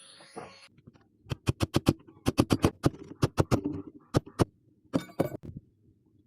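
A run of sharp knocks, several a second in irregular bursts, like hand tool strikes on metal. A steady hum stops just before them.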